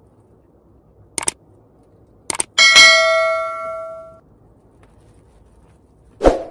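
Subscribe-button sound effect: a click, then a quick double click, then a bell ding that rings and fades over about a second and a half. A short thump near the end.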